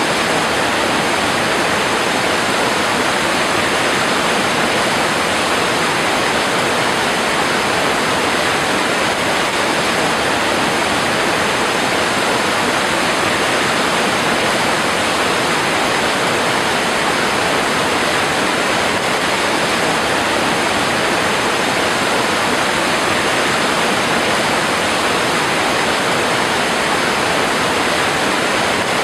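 Waterfall pouring onto rocks: a steady rush of falling water.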